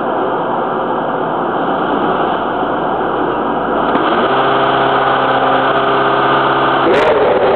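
Onboard sound from under the nose of a 2011 T128 Formula One car: the V8 engine running with rushing noise around the car. About four seconds in, the engine note settles into a steady tone; near the end it rises sharply in pitch and stays higher.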